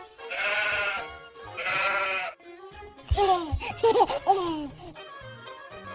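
Sheep bleating: two long wavering baas, then several shorter bending calls about three to four and a half seconds in, over light background music.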